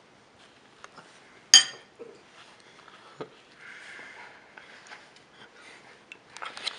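One sharp, ringing clink of tableware about a second and a half in, softer mouth noises of chewing, and near the end a short burst of spitting food out into a paper napkin.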